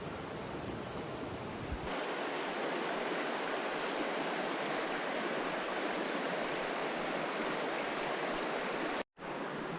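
Rushing water of a small mountain stream, a steady even wash of sound that changes abruptly about two seconds in and drops out for a moment near the end.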